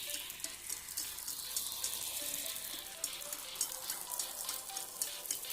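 Flatbread dough deep-frying in hot oil: a steady sizzle with many small crackles.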